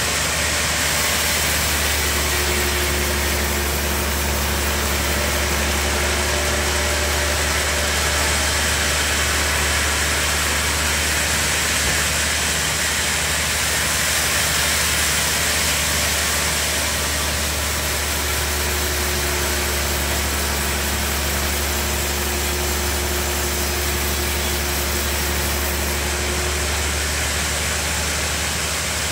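Large sawmill band saw cutting lengthwise through a big log: a steady low motor hum under a continuous rushing noise from the blade in the wood.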